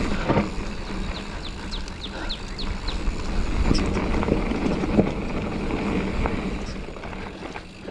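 A Giant Fathom mountain bike being ridden over a rough dirt trail: tyres crunching and rattling, with several sharp knocks and a constant low rumble on the helmet camera. A run of about six quick, high falling chirps comes between one and three seconds in.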